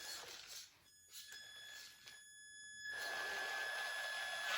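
Hobby-grade RC car's electric motor and speed controller whining at low throttle: a steady high-pitched tone that cuts out briefly twice, with louder running noise building from about three seconds in as the car strains to climb.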